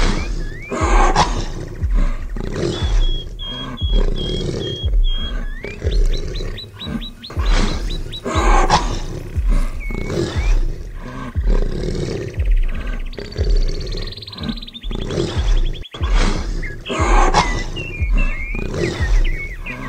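Big-cat roars and growls every few seconds over music with a steady low beat about once a second, with birds chirping and a high trill in the middle.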